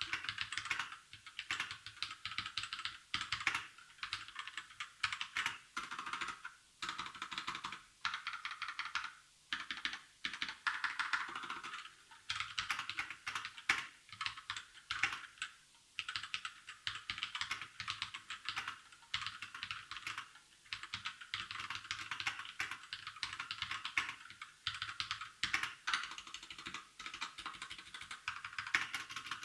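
Continuous fast typing on an RK61 60% mechanical keyboard with red Outemu switches: a dense run of bright key clacks with brief pauses between bursts.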